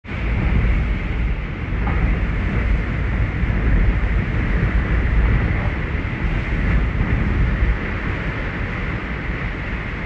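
Hurricane-force wind blowing hard with driving rain, gusts buffeting the microphone with a low rumble that eases about eight seconds in.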